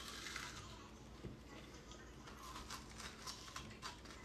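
Faint mouth sounds of someone biting and chewing watermelon flesh off the rind, with a run of short clicks in the second half.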